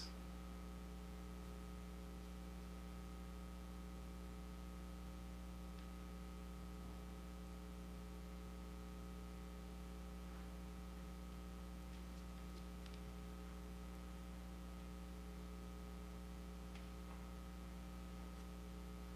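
Steady electrical mains hum in a quiet room, with a few faint clicks scattered through it.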